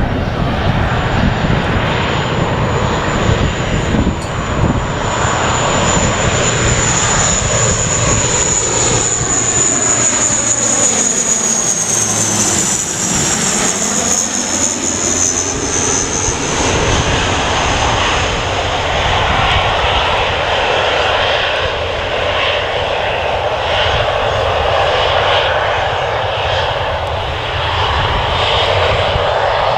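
An airliner's engines passing close by: a steady loud rumble with a high whine. The whine dips in pitch as the aircraft passes its closest point about halfway through, and the engines keep sounding loudly as it moves away.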